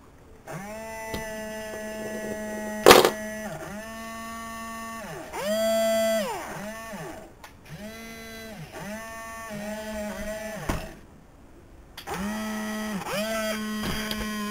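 Small electric gear motors of a Lego Technic robot arm whining in a series of short runs, each starting and stopping with a quick rise and fall in pitch. There is a sharp click about three seconds in and a pause of about a second near the end.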